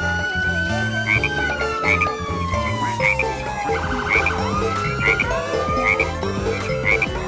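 Musical toy frog playing its electronic tune: a looping synthesized melody with short croaking chirps about once a second and a siren-like whistle that slides slowly down in pitch, then rises again about five seconds in.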